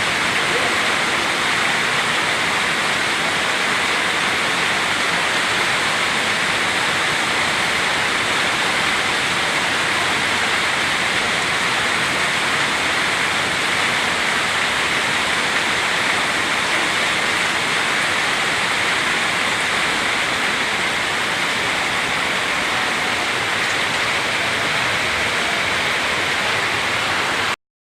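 Floodwater rushing in a torrent, a loud steady roar of water that cuts off suddenly near the end.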